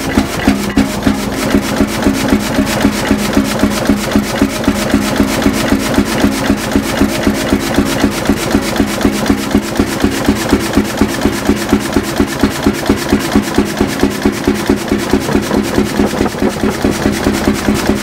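1936 Storebro 40 hp single-cylinder hot bulb engine running, loud, with a steady, even beat of firing strokes about two to three a second.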